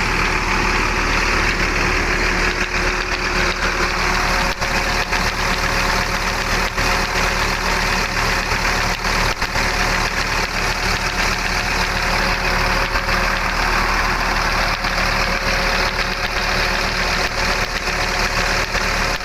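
The bus's rear-mounted engine idling steadily, with a steady tone from the fan belt running over it. The driver says this sound is normal for a fan belt.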